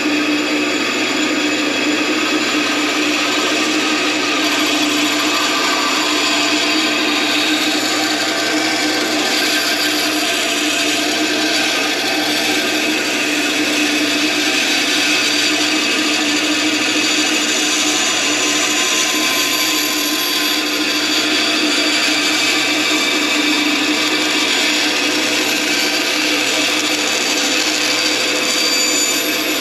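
Bandsaw running steadily, its blade cutting through soft plastic sheet as the work is fed along a pattern.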